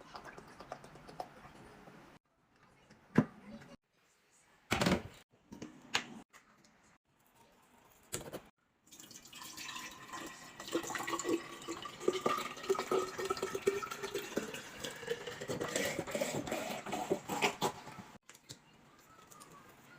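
A few sharp knocks and clicks, then liquid being poured into a container for several seconds, the pitch of the pour rising as the container fills.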